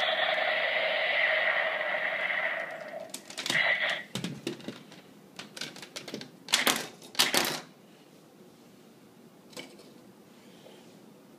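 Electronic sound effect from a Kyoryuger GabuRevolver toy gun's small speaker, a steady buzzing tone that fades out about three seconds in. It is followed by a run of sharp plastic clicks and clacks, the loudest two a little over halfway through.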